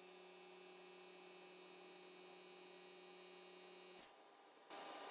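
Near silence: a faint steady electrical hum in room tone, which cuts off about four seconds in and gives way to a slightly louder steady hiss.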